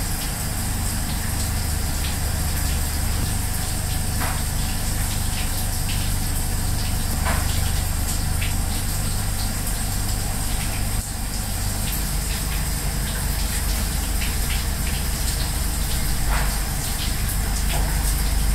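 Steady restaurant kitchen noise: a continuous rush with a low hum, and a few faint light clicks.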